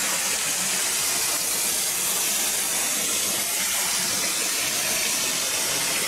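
Waterfall pouring and splashing onto rocks close to the microphone: a steady rush of falling water.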